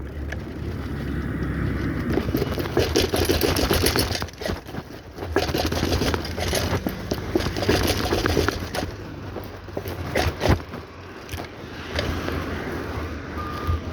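Bicycle on the move: wind on the microphone and tyres rolling over a rough road, with scattered rattles and knocks from the bike.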